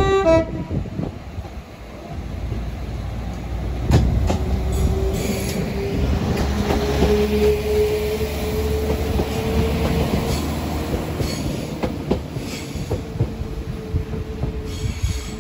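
Transport for Wales diesel multiple unit pulling out of the platform. A low rumble of engine and wheels runs throughout, with a whine that rises slowly in pitch as the train gathers speed. There is a sharp clunk about four seconds in.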